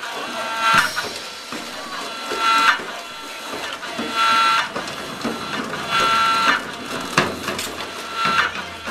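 A small motor-driven mechanism whirring in short buzzing bursts, about one every two seconds, with a few knocks between.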